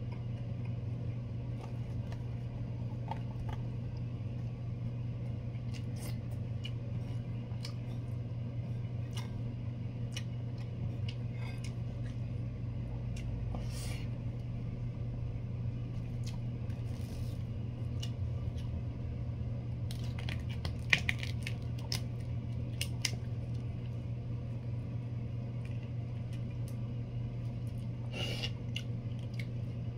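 Close-up eating sounds of someone eating rice and large prawns by hand: chewing, with scattered small clicks and crunches from handling the food and shells, over a steady low hum.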